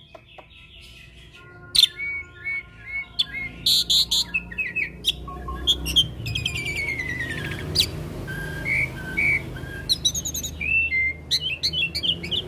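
Caged hybrid starling (jalak Nias × jalak suren) singing a busy, varied song of whistled notes, quick chirps, harsh rattling phrases and trills.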